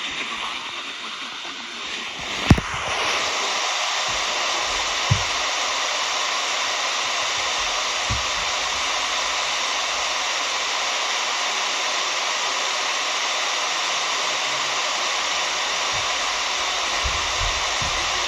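Steady radio static hiss, coming in with a sharp click about two and a half seconds in, with a few faint low thumps under it.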